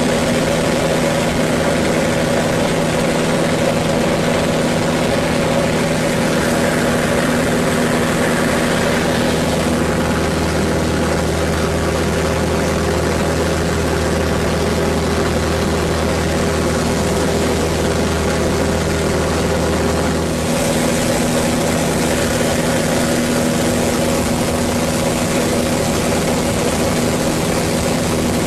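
Pitts Special biplane's piston engine and propeller running steadily, heard from inside the canopied cockpit in flight. About a third of the way in, a deeper drone joins the engine note and holds for around ten seconds, then drops away abruptly.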